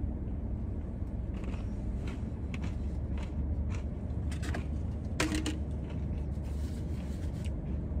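Scattered soft clicks and scrapes of a plastic spoon digging into a paper Blizzard cup of thick soft-serve, over a steady low rumble in a car's cabin.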